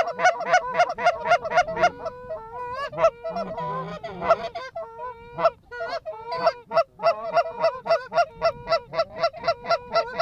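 Canada goose honks and clucks, fast and overlapping from several voices. They come in quick, evenly spaced runs at about five a second, break into a looser jumble of honks and drawn-out notes for a few seconds, then pick up the quick run again. It is the sound of geese being called into a decoy spread.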